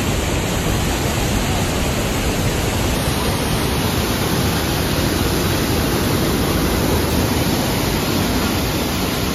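Fast-flowing muddy stream rushing through a stone channel, with water gushing from a culvert outlet: a steady, loud rush of water.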